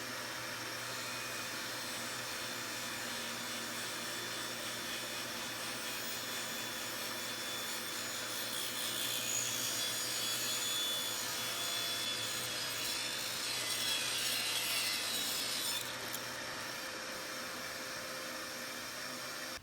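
Table saw running steadily, its blade cutting through a wooden frame piece fed on edge; the cut gets louder and higher-pitched from about nine to sixteen seconds in.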